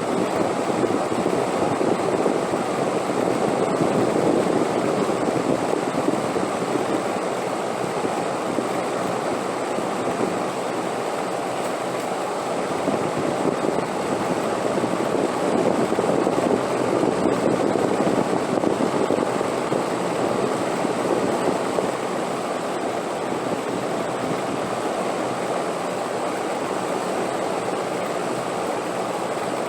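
Wind blowing steadily: a low, even rushing that slowly rises and falls.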